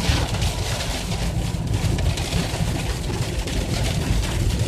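Steady low road and engine rumble inside a car's cabin while it drives through a thunderstorm, with a haze of rain on the car over it.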